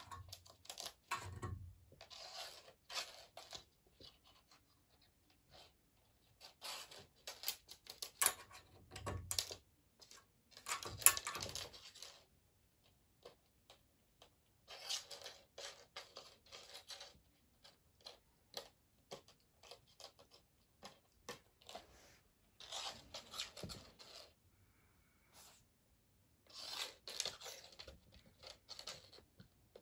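Metal hairpin skittering and clicking across a laminate floor as a cat bats it with its paws, with soft paw scrapes. It comes in bursts of rapid ticks and scrapes, several times, with quiet pauses between.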